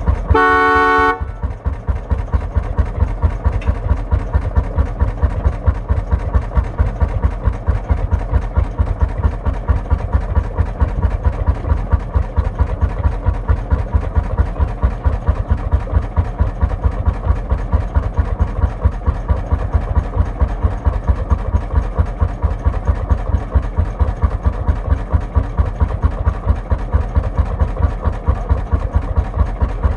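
Lanz Bulldog single-cylinder hot-bulb two-stroke engine idling with a steady, even chugging beat. A horn sounds once, briefly, near the start.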